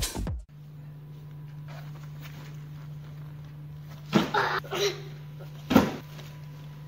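Electronic dance music cuts off half a second in, leaving a steady low hum of a room. About four seconds in come a few short thumps and scuffs of a child tumbling onto a padded gymnastics mat, with a sharper thud near six seconds as the child lands on the mat.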